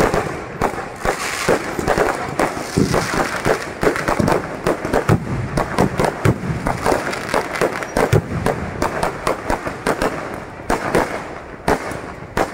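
Aerial fireworks shells bursting overhead in a rapid, unbroken barrage: loud bangs several times a second with crackling between.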